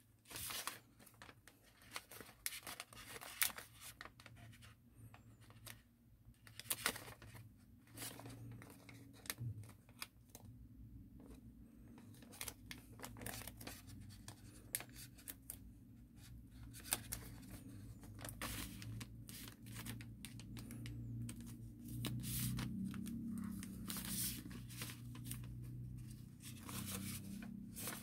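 A sheet of origami paper being folded and creased by hand: irregular crisp rustles and crinkles with short sharp creasing strokes. A low steady hum sits underneath and grows louder in the last few seconds.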